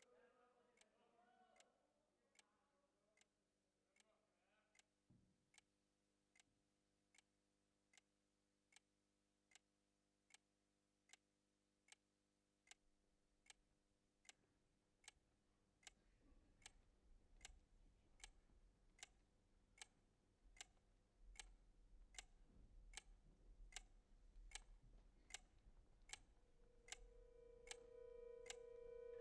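Faint, steady clock-like ticking, about two ticks a second. A low rumble comes in about halfway through, and a held musical note swells up near the end.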